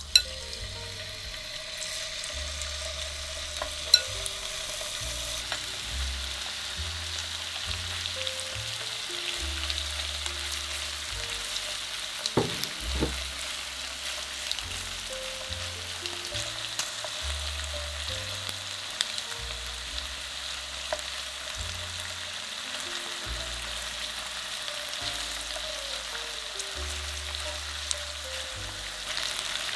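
Marinated chicken thigh pieces frying in hot oil in a nonstick pan: a steady sizzle. A few sharp clicks of the tongs against the pan come through, the loudest right at the start and about four seconds in.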